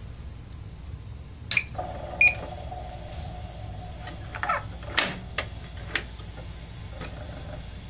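A switch clicks on about a second and a half in and a steady hum sets in. Over it come a string of sharp clicks and clacks from a 5.25-inch floppy disk drive being handled and working as a Radio Shack TRS-80 Model I boots from it.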